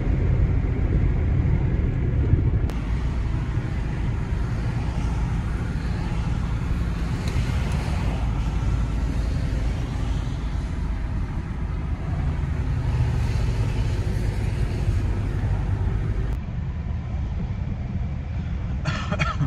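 Engine and road noise inside the cab of a GAZelle Next van moving slowly in heavy traffic: a steady low rumble. It drops abruptly in level a little under three seconds in and again about three seconds before the end.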